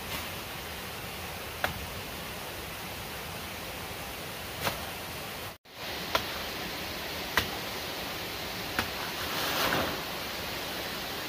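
Steady rushing noise, with about five short sharp snaps spread through it and a brief rustle near the end.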